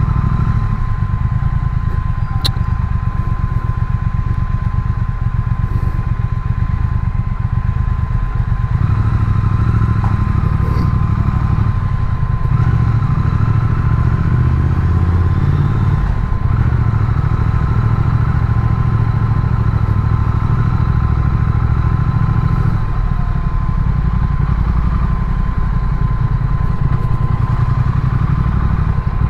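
Triumph Speed Twin's parallel-twin engine running at low speed, a steady low rumble heard from the saddle as the motorcycle rolls through slow traffic, with a thin steady tone above it and one brief click a couple of seconds in.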